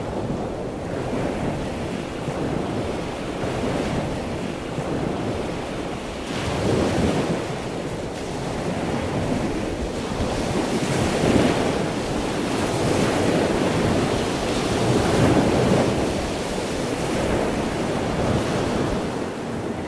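A steady rushing noise like surf, swelling and easing every couple of seconds.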